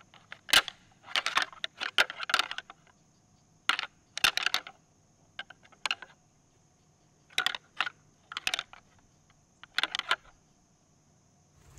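Light rattling to call deer: short bursts of sharp clicking and clacking, about nine bursts spaced a second or two apart with quiet between, imitating bucks sparring.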